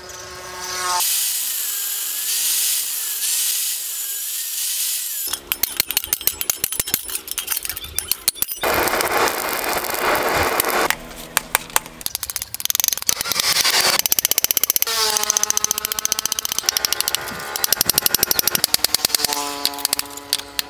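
A run of short metalworking sounds on a motorcycle brake disc: a power tool cutting the steel with a steady high hiss, then a string of whines and clattering knocks, and hammer blows on red-hot steel on a post anvil near the end.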